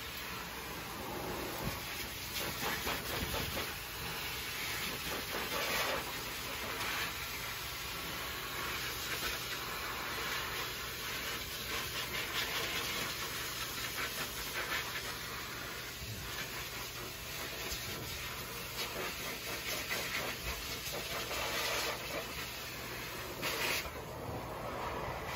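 Pet grooming high-velocity dryer blowing air through its flat nozzle onto a wet dog's coat: a steady hissing rush over a low motor hum, its loudness wavering as the nozzle moves over the fur.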